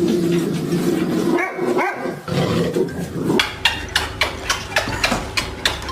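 Dog making two long, drawn-out grumbling growls with a short break between them, then a run of quick clicks, about four or five a second.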